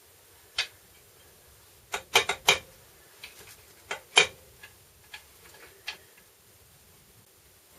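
Sharp clicks and knocks of tools and metal transfer-case parts being handled. There is a quick cluster of four about two seconds in and the loudest single knock about four seconds in, with a few lighter ticks around them.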